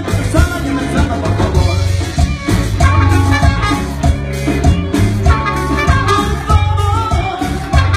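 Live Latin band playing, with drum kit and bass prominent under guitars and melody lines.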